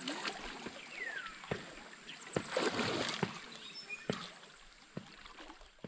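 Quiet riverside ambience: river water lapping and trickling at the bank, with scattered sharp clicks and ticks over a faint steady high-pitched tone. A short falling whistle sounds about a second in.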